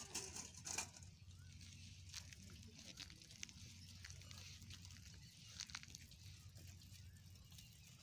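Faint sound of goats grazing close by: scattered soft snaps and clicks of grass being cropped, over a low steady rumble.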